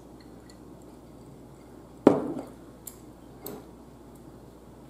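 Tableware knocking on the table: one sharp clack about two seconds in, then a few light clicks of dishes and cutlery.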